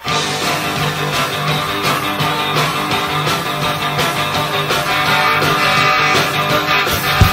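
Rock band starting a song live: a guitar-led intro kicks in suddenly, with heavy drum hits coming in near the end.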